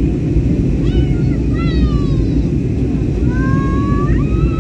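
Steady low rumble of jet engines and airflow heard inside a jet airliner's cabin in flight. High, wavering pitched sounds rise over it twice, about a second in and again from about three seconds in.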